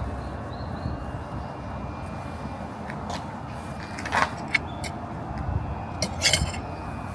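Steady mechanical running noise with a low rumble, broken by a few sharp clicks, the loudest about four and six seconds in.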